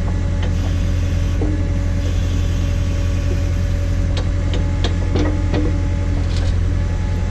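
John Deere 317 garden tractor's engine running steadily under the Davis D100 backhoe, with scattered sharp clicks and knocks from the machine working.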